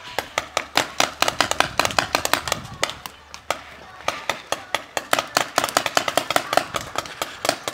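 A fast, irregular string of loud sharp clicks and pops, several a second, with a short lull about three and a half seconds in.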